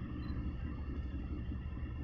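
Steady low rumble of a large container ship's engines and machinery as it passes, with a faint even hum of steady tones above it.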